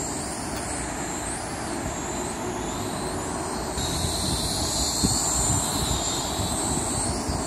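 Small quadcopter drone's propellers whining in flight, the pitch wavering up and down. The whine gets louder about four seconds in.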